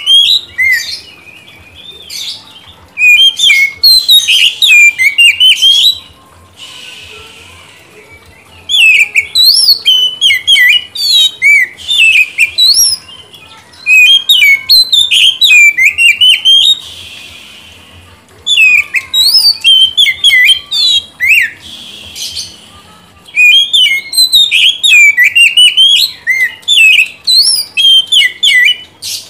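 A male oriental magpie-robin singing loudly: runs of rapid, varied high chirps and whistled notes, each run lasting a few seconds with short pauses between, about five runs in all.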